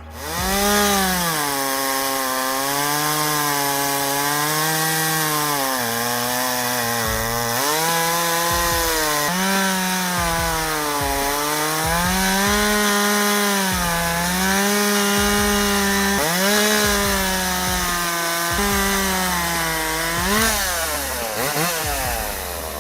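Ryobi RCS5145B 45 cc two-stroke gas chainsaw cutting wood. The engine note drops repeatedly as the chain loads up in the cut, then climbs back each time.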